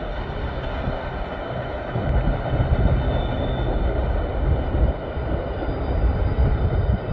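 Tank cars at the rear of a CSX freight train rolling along the rails, a steady rumble of steel wheels on track.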